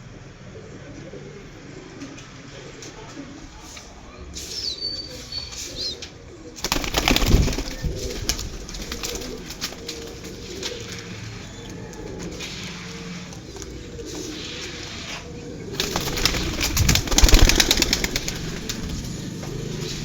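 Domestic pigeons cooing, with two loud bouts of wing flapping, one about seven seconds in and one about seventeen seconds in. A few faint high chirps come in around five seconds.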